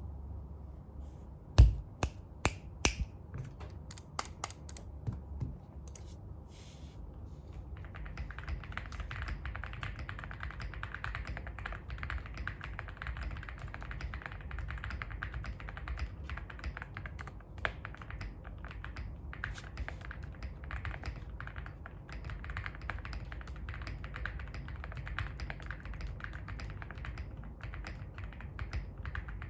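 Computer keyboard being typed on: a few separate, loud key strikes in the first few seconds, then continuous fast typing from about eight seconds in.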